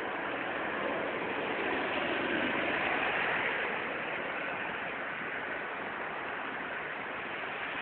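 Steady hiss of rain falling on a street, the rain having eased off, swelling slightly about two to four seconds in.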